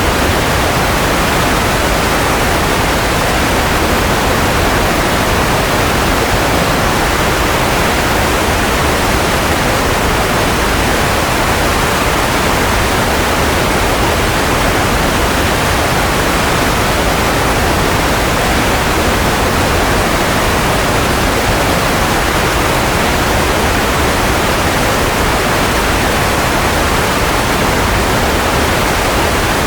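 Steady, unchanging white noise: an even, full hiss with no rhythm, tones or breaks.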